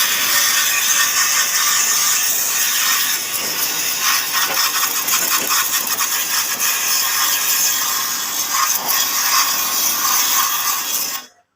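Harsh, steady scraping rasp of a front-loading washing machine's drum being cleaned. It starts abruptly and cuts off suddenly near the end.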